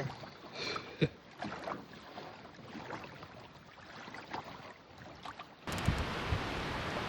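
Quiet riverside ambience with a few light knocks and splashes, the sharpest about a second in. About five and a half seconds in, a steady rush of wind and water noise starts suddenly.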